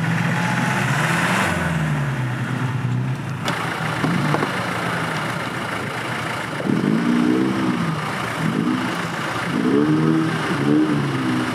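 Land Rover Defender engine working hard during an off-road recovery in mud, revving up and down. In the second half it is blipped several times, each rev rising and falling in pitch.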